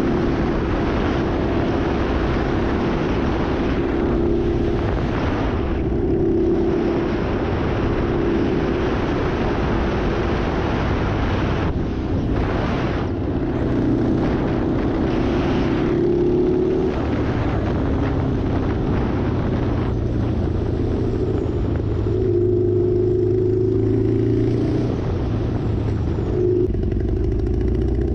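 Kawasaki Ninja ZX-9R inline-four sport bike running under way, its engine note rising and falling several times with the throttle, over a continuous rush of wind and tyre noise on wet road.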